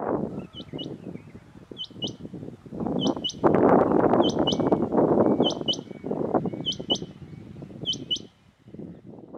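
Male Rain Quail (black-breasted quail) calling: a pair of short, high squeaks, repeated about once a second, seven times. Under it is a loud low rushing noise that is loudest in the middle.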